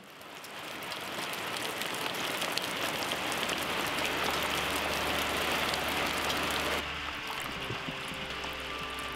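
Rain, with runoff splashing from the end of a roof gutter into a rain-collection tote, fading in at the start. About seven seconds in it drops abruptly to a quieter rain.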